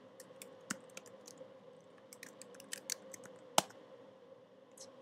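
Typing on a computer keyboard: a quick run of faint key clicks, with one louder keystroke about three and a half seconds in.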